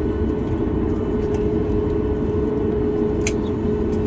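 Steady cabin noise of a Boeing 737 MAX 8 airliner at its stand: a deep rumble with a constant hum, and two short clicks about two seconds apart.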